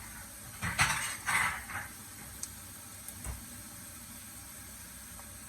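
Spatula scraping and stirring in a frying pan of sautéing garlic and onion: three or four quick strokes about a second in, then a faint steady hiss.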